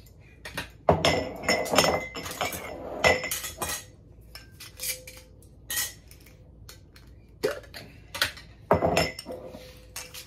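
Metal screw bands and flat lids being taken off quart-size glass Ball mason jars: a run of irregular sharp clinks and clatters of metal against glass, some ringing briefly.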